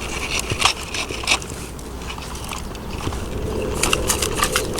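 Dirt and gravel crunching and scraping under a plastic Bruder JCB toy backhoe as it scoops and dumps a load: a few sharp crunches in the first second or so and a quick run of them near the end.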